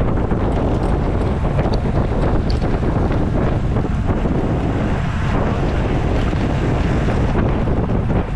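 Wind buffeting the microphone of a camera on a racing bicycle at race speed: a loud, steady, low rushing that covers everything else.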